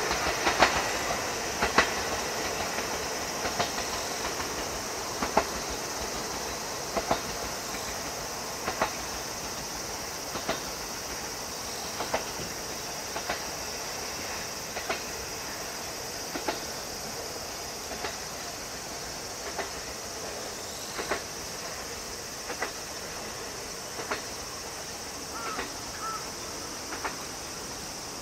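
A JR 125-series electric train's wheels clacking over rail joints as it pulls away: sharp clicks about every one and a half seconds, steadily fading into the distance over a faint steady hiss.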